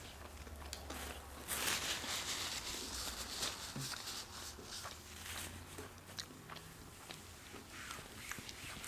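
A person chewing food close to the microphone, with small mouth clicks scattered through and a louder stretch of chewing about one and a half seconds in.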